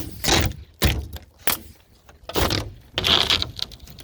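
Irregular scraping and knocking of roof work: about five short, noisy strokes.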